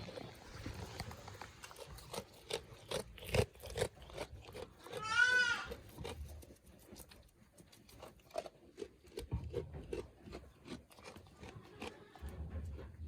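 A goat bleats once, a single wavering call about five seconds in, among scattered short clicks and crunches.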